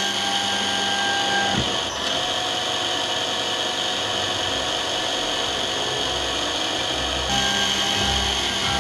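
Spindle motor of a Canton CT5412 lens drilling machine running steadily as it drills holes in an eyeglass lens. Its tone shifts about two seconds in and again about seven seconds in.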